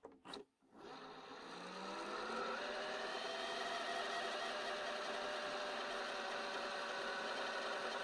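VHS video cassette recorder rewinding a tape: a click, then the tape transport spins up, its whine rising in pitch over the first couple of seconds before settling into a steady whir.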